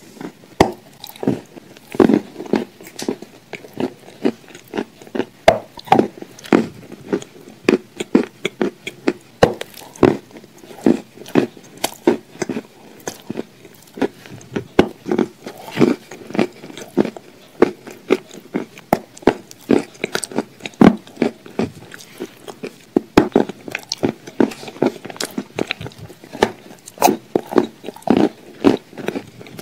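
Close-miked eating sounds: wet lip smacks, sucking and chewing as sticky chocolate spread is licked off the fingers. Many short, irregular smacks and clicks.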